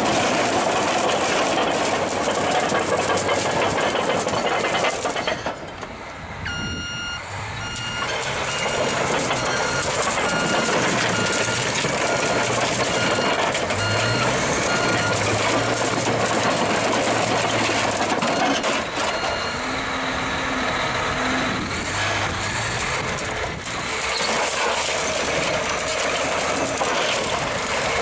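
Heavy construction machine's reversing alarm beeping steadily over loud diesel engine and machinery noise. The beeping starts about six seconds in and stops a little before two-thirds of the way through.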